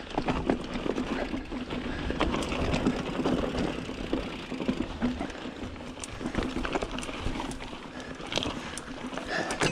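Mountain bike being ridden along a dirt trail: continuous tyre and bike noise with frequent sharp clicks and rattles.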